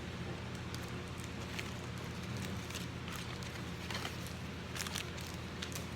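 Trading cards and their packaging being handled: scattered light clicks and taps, over a steady low hum.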